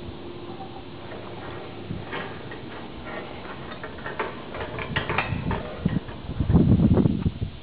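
Scattered light metallic clicks and ticks of rigging hardware on a steel lattice tower, followed near the end by a louder, choppy low rumble.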